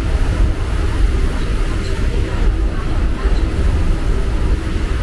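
Steady running noise inside a Mumbai suburban electric train coach: a continuous heavy low rumble of the carriage on the rails.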